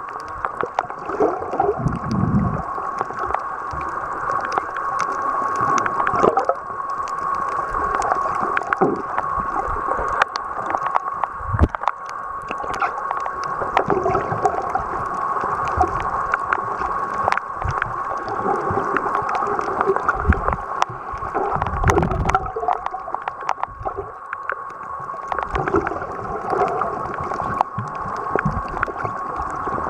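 Muffled underwater sound picked up by a submerged camera: gurgling water over a constant mid-pitched hum, with a few low thumps.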